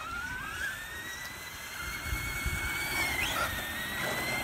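Electric motors and drivetrains of two RC monster trucks, a Traxxas Stampede 2WD and an ECX Ruckus brushless, whining at speed. The whine rises in pitch over the first second or so, then holds high and steady, dipping briefly about three seconds in.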